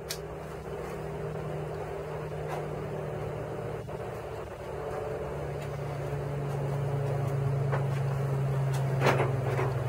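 A steady low mechanical hum that grows a little louder and drops slightly in pitch about halfway through, with a few faint clicks and one sharper knock near the end.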